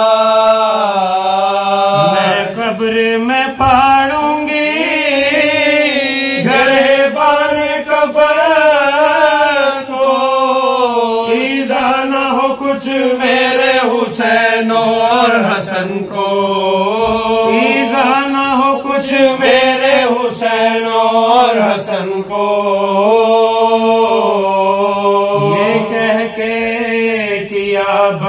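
Unaccompanied men's voices chanting a marsiya, an Urdu elegy: a lead voice sings long, wavering melismatic phrases over a steady held low drone, pausing only briefly between phrases.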